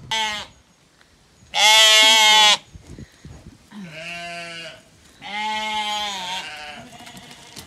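Sheep bleating: four separate bleats, a short one at the start and three about a second long, the second the loudest and highest-pitched.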